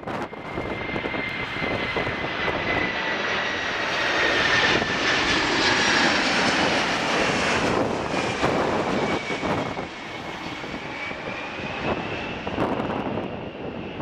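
Boeing 747-400's four turbofan engines passing low overhead on landing approach: a steady jet rumble with a high whine that slowly drops in pitch, loudest about halfway through, then easing as the jet moves away.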